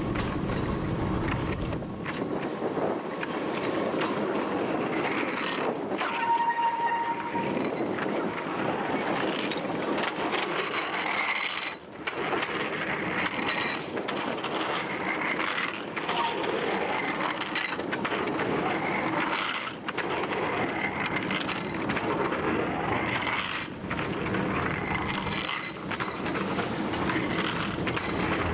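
TU7 narrow-gauge diesel locomotive running along the track, a steady engine drone mixed with wheel and rail noise. A brief high tone sounds about six seconds in.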